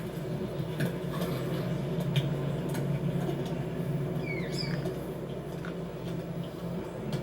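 Film sound-effects track: a low steady hum with scattered light clicks and ticks, and two short squeaky pitch glides about four seconds in.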